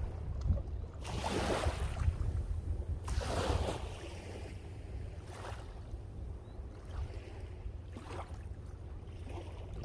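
Sea waves washing in, two larger surges about one and three seconds in and fainter ones later, over a steady low rumble of strong wind on the microphone.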